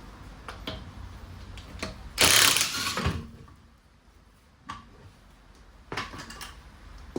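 Workshop tool sounds: scattered clicks and knocks, with a loud burst of noise lasting about a second, starting about two seconds in.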